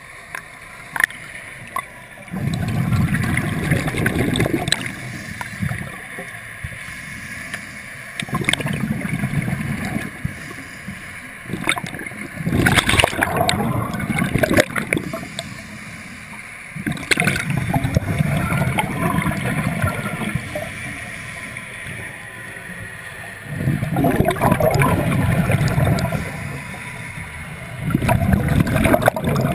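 Scuba diver breathing through a regulator underwater: a gurgling burst of exhaled bubbles every five seconds or so, six in all, with quieter stretches between.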